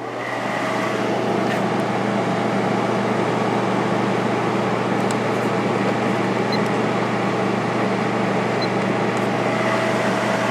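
Blower fan of a Coronado Duchess 50 window air conditioner, driven by its two-speed shaded-pole motor on high speed. It comes up to speed in the first second, then runs as a steady rush of air over a low electrical hum.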